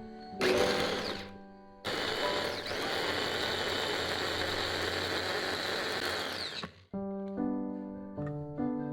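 A short rushing burst, then about five seconds of steady whirring from a small motor that cuts off suddenly, with soft piano music before and after.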